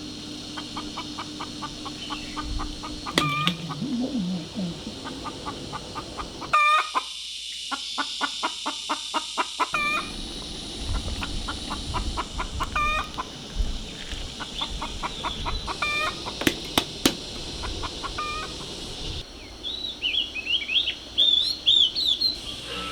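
Chickens clucking, with rapid runs of short notes and a louder call every few seconds. A small bird chirps near the end.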